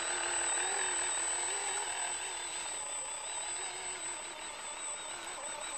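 Small electric motor and gear drive of a homemade RC 6x6 farm truck whining under a load of sandbags, its pitch wavering as the load changes. It fades a little as the truck drives away.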